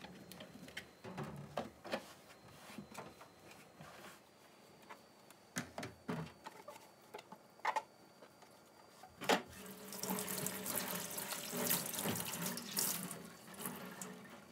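Cloth rubbing and small knocks as a stainless steel sink's faucet and pump soap dispenser are wiped down, with one sharp knock about nine seconds in. Then the tap runs into the stainless sink for about three seconds and stops near the end.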